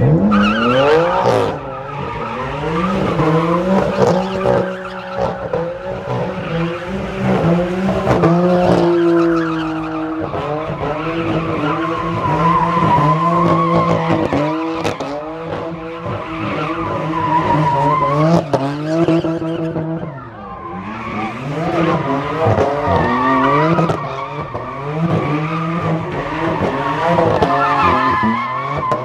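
A car engine revving hard, rising and falling over and over, while its tires squeal and skid as the car spins donuts.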